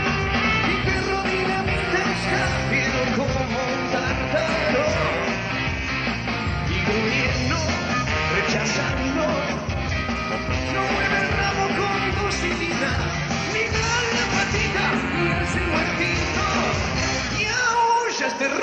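Rock band playing live at a steady, loud level, with a voice singing over the band.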